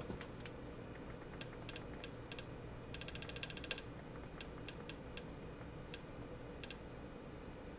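Short, identical clicks as a TV menu list is scrolled. There are scattered single clicks, and about three seconds in a fast run of about a dozen, over a faint steady hum.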